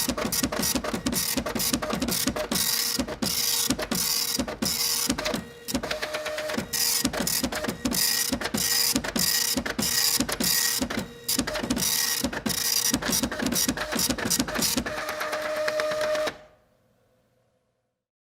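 Printer printing: fast mechanical clicking and whirring in passes separated by brief pauses. It stops about sixteen seconds in and fades to near silence.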